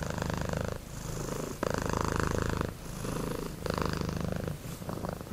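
Domestic cat purring close up, a rapid rumbling pulse that swells and dips about once a second.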